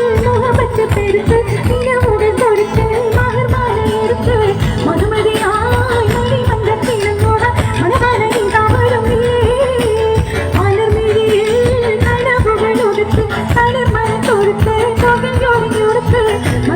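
Loud music from a stage show: a singer's wavering melody over an amplified band with a steady beat, in the style of Indian film or Mappila song.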